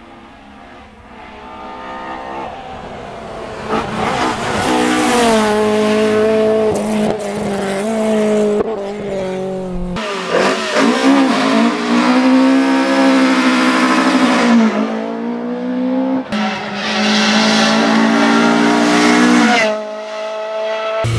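Rally car engines at full throttle: a Ford Escort rally car grows louder as it approaches, its engine note climbing and dropping back with several quick gear changes. After an abrupt change, other rally cars rev hard and accelerate, one of them a Peugeot 205.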